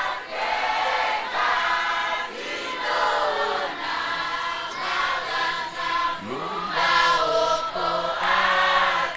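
Congregation singing a Shona hymn in chorus, many voices together in phrases about a second long with short breaks between them.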